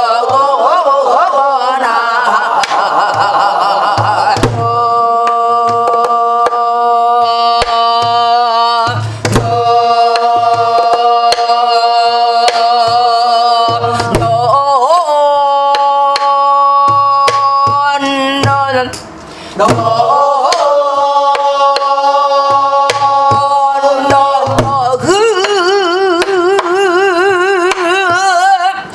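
A woman singing gueum, the wordless vocal syllables of Korean traditional music, in long held notes, with a wavering vibrato near the end, over strikes on a buk barrel drum with a stick. The singing breaks off briefly about two-thirds of the way through.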